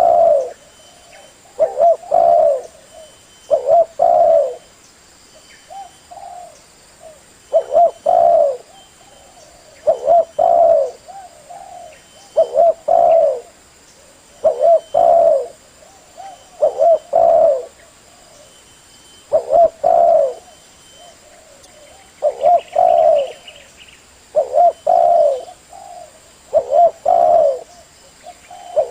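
Male spotted dove (tekukur) cooing: a phrase of a few low coos repeated roughly every two seconds. This is the call used to lure other tekukur.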